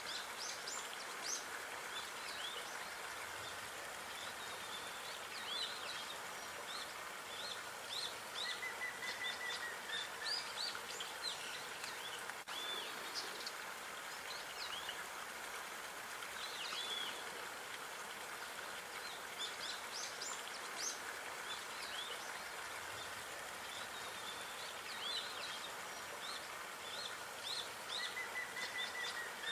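Small birds chirping and calling in frequent flurries of short quick notes, with a brief level trill about nine seconds in and again near the end, over a steady hiss of running water.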